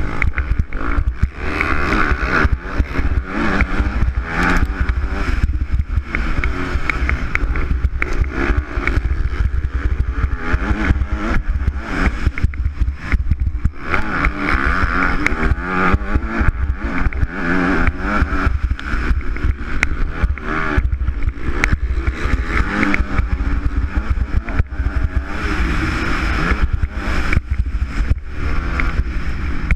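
Motocross bike engine revving hard and easing off again and again as it races over a dirt track, the pitch rising and falling throughout. Heard from a helmet camera, with heavy wind buffeting on the microphone.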